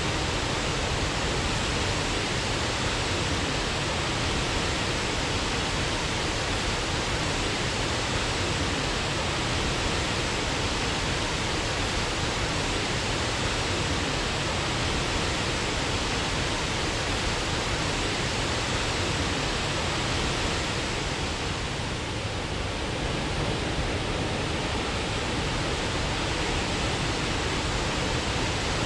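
Waterfall: water falling and splashing in a steady, dense rush.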